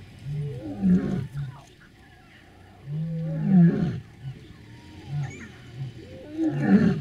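Lion roaring: loud, deep moaning calls, the longest and loudest about three seconds in, with a run of short grunts about twice a second before the calls swell again near the end.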